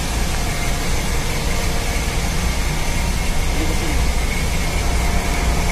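Steady drone of a ship's engine-room machinery: a deep, constant hum with a faint steady whine on top.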